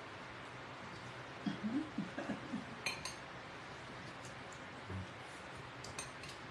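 A fork clinking lightly against a salad bowl, a single clink about three seconds in and a few more near the end, with a faint low murmur of a voice shortly before the first clink.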